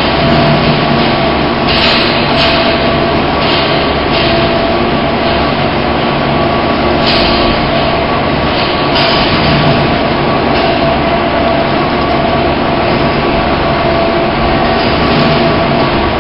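Loud, steady mechanical drone of processing-plant machinery, with a few steady tones running through it and brief swells of hiss now and then.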